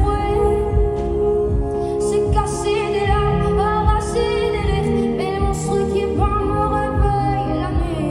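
A slow pop ballad: a solo singer holding and gliding through long sung notes over instrumental accompaniment with a regular low beat.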